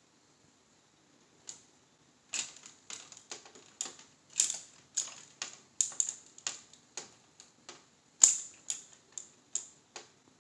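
Plastic clothes hanger hung on a doorknob, batted by a cat's paw and clacking against the door and knob: an irregular run of sharp clicks and knocks, starting about a second and a half in, the loudest late on.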